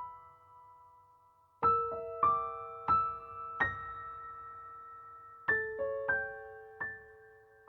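Slow, sparse piano music: single notes struck one at a time, each left to ring and fade. A pause of about a second and a half comes before the next short phrase.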